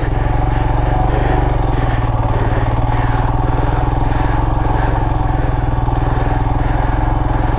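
Motorcycle engine running steadily under load while the bike is ridden through loose sand.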